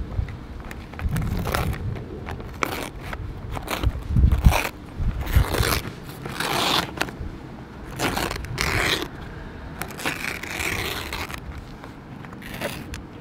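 Plastic film and paper wrapping crinkling and rustling in irregular bursts as it is peeled off a vending-machine hot dog tray in a cardboard box, with a couple of low bumps about one and four seconds in.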